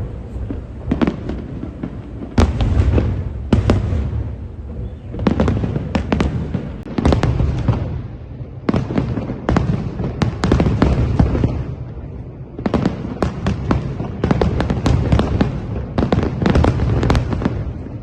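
A fireworks display: dense volleys of shells bursting with sharp cracks over a continuous deep rumble, in waves with short lulls between them.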